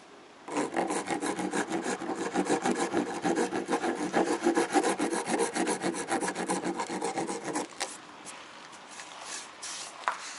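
A flat metal blade scraped rapidly back and forth over the hardened epoxy skin of a Dyneema-and-aramid-reinforced boat hull, several strokes a second, scraping off dripped drops of cured epoxy. The scraping starts about half a second in and stops just before the eight-second mark.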